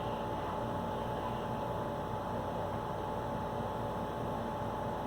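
Steady background hiss with a faint electrical hum, even throughout with no knocks or beats.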